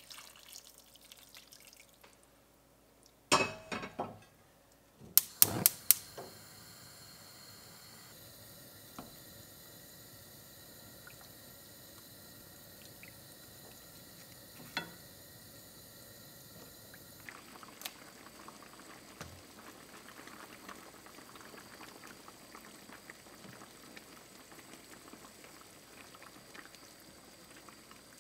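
Kelp stock pouring into a stainless steel pan of chicken, then a few sharp clinks about three to six seconds in. After that the stew simmers with a steady faint bubbling and a few small ticks.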